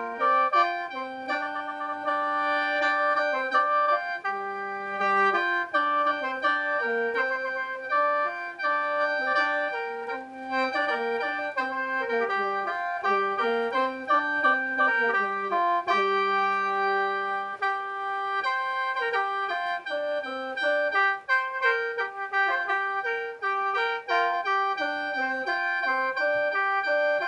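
Khaen, the Lao bamboo free-reed mouth organ, played solo in lai sao mode: a quick, stepping melody over several steady drone notes held throughout.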